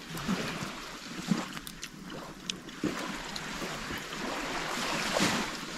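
Small waves washing on a sandy beach, with wind hiss, swelling a little about five seconds in. A few faint clicks sound over it.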